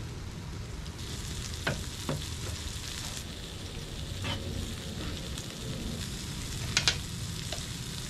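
Whole fish sizzling steadily as it pan-fries in oil, with a few sharp knife taps on a cutting board while green onions are chopped; the loudest taps come as a quick pair near the end.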